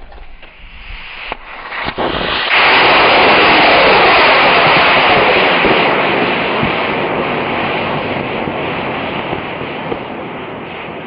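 Rocket motor of a model Me 163 Komet firing for launch off its rail. A hiss builds over the first couple of seconds, then jumps to a loud, steady roar about two and a half seconds in. The roar sweeps down in pitch and slowly fades as the plane climbs away.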